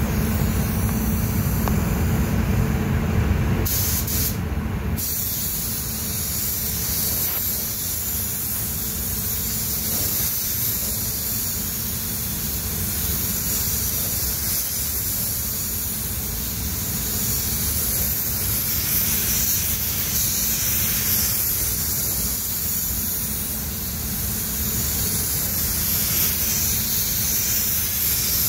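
Compressed-air gravity-feed spray gun hissing steadily as it sprays automotive clearcoat onto a car body, with pass-to-pass changes in the hiss. A low rumble sits underneath for the first four seconds.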